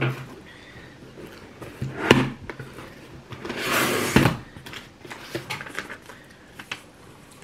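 Cardboard shipping box being handled: a sharp knock about two seconds in, then a rustling scrape of about a second, followed by lighter taps and rustles of cardboard and paper.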